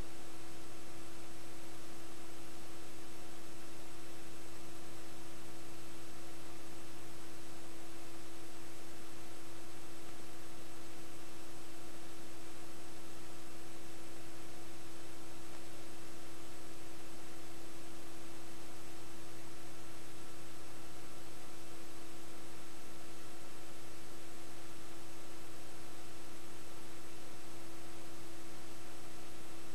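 Steady electrical hum: one unchanging tone with a few fainter ones, over constant hiss. The tape carries no game sound, only this noise.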